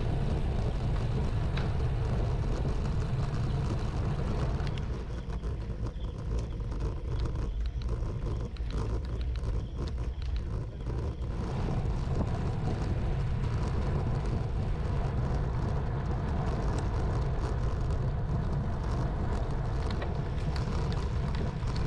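Wind buffeting the microphone of a camera riding on a bicycle, with tyre and road rumble: a steady low rumble that eases off for several seconds about a quarter of the way in, then comes back.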